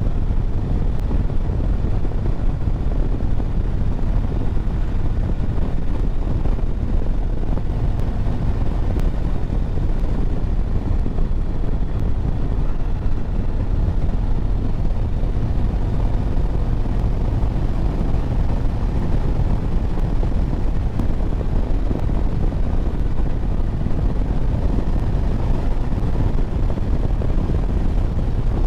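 Harley-Davidson Road Glide's V-twin engine running at a steady cruise, with road and wind noise, heard from the rider's seat.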